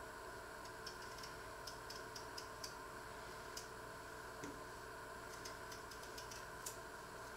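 Small irregular clicks of a paring knife cutting and scraping the skin off a boiled potato by hand, over a steady background hum.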